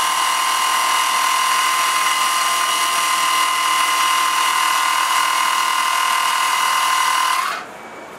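Portable 12-volt air compressor running with a steady, high-pitched motor whine, inflating a motorcycle tire to seat its bead on the rim. The whine cuts off suddenly near the end.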